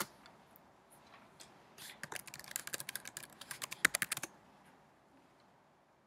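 Rapid typing on a laptop keyboard right beside the microphone: a burst of quick key clicks lasting about two seconds, after a single sharp knock at the very start.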